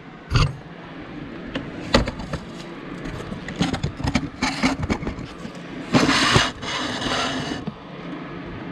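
CAV diesel injector from a Perkins 6.354 on a hand-lever pop tester, fired into a plastic catch bottle: a few sharp knocks from the pump lever and handling, then two hissing bursts of spray about six and seven seconds in as the nozzle opens under pressure.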